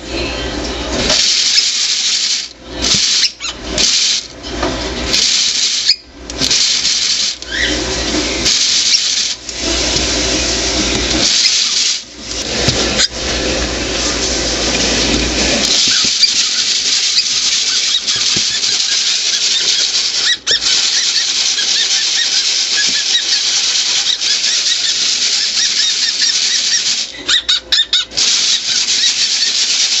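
Dried popcorn kernels rattling loudly in a glass jar shaken by hand. For the first half the shaking comes in stops and starts, then it settles into a steady rattle.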